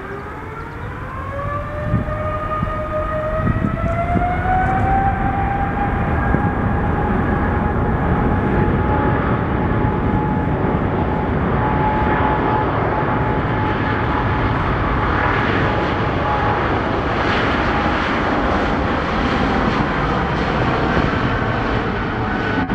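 Boeing 777's twin Pratt & Whitney PW4000 turbofans spooling up to takeoff thrust. A whine rises in pitch over the first five seconds or so, then holds steady over a heavy jet roar as the airliner starts its takeoff roll.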